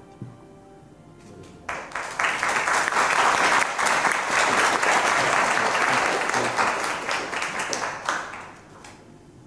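Audience applauding, starting a little under two seconds in and dying away near the end, over faint background music.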